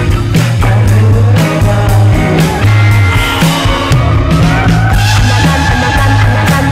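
Slow psychedelic rock jam: guitar over a heavy bass line and drums, with a melodic line sliding upward midway through.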